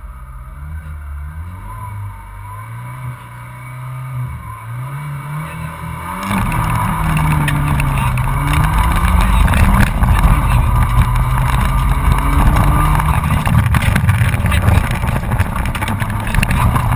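Honda Civic 1.3's four-cylinder engine heard from inside the cabin. It is blipped up and down while the car waits at the start. About six seconds in it goes to hard acceleration, running loud with its pitch rising and falling, under a heavy rush of tyre and road noise.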